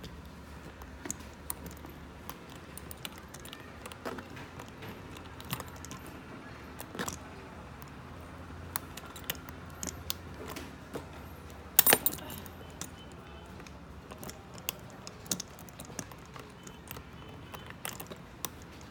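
Light metallic clicks and rattles, scattered and irregular, from a suitcase's Bluetooth lock being handled as it is set to lock, with a sharper cluster of clicks about twelve seconds in.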